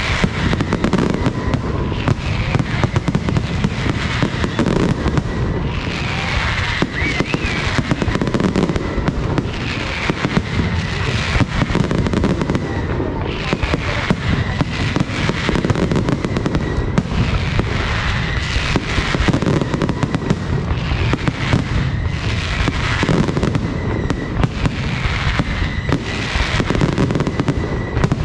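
Aerial fireworks display: a dense, unbroken barrage of bangs and crackling, with pitched whistles rising and falling every couple of seconds.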